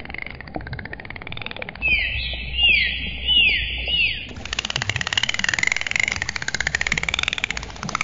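Dolphins clicking and whistling: a dense train of rapid clicks under wavering whistles, with a run of four short falling chirps about two seconds in. The recording changes abruptly about four seconds in.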